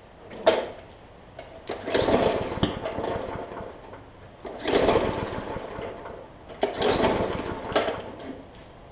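Briggs & Stratton OHV push-mower engine being pull-started by its recoil rope: a sharp click, then three pulls, each a surge of cranking that dies away without the engine running on. It is hard-starting because water got into its fuel while it sat over the winter.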